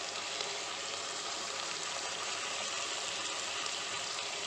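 Crab fry sizzling steadily in a clay pot, its cooking liquid boiled off so the crabs are now dry-frying in the oil and masala.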